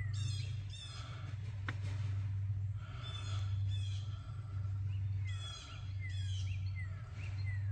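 Birds singing phrases of short downward-sliding notes, repeating every second or so, over a steady low hum.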